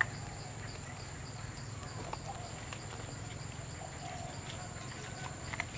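Outdoor ambience around a troop of macaques: a steady high-pitched whine over a low hum, with a few faint short calls. A sharp click at the start and another near the end.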